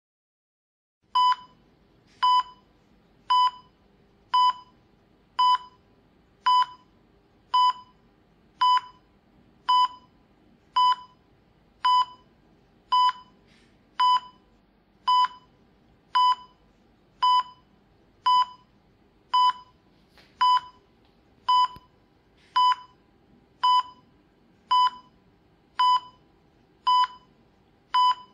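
Operating-room patient monitor giving its pulse beep: short, identical single-pitched beeps at an even pace of about one a second, each marking a heartbeat, starting about a second in over a faint room hum.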